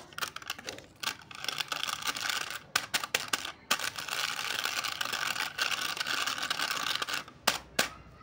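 Plastic candy tub being handled: sharp clicks and taps of the plastic lid and container, then a steady scratchy rubbing as fingers run over the foil seal, with two sharp clicks near the end.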